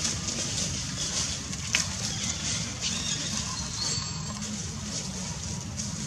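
Steady outdoor background of a low rumble and a high hiss, with a sharp click a little under two seconds in and a brief thin high tone about four seconds in.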